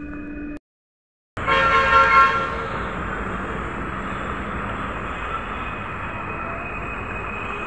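After a brief dropout in the sound, a vehicle horn sounds for about a second, then steady road-traffic noise as a trolleybus and cars drive along a street.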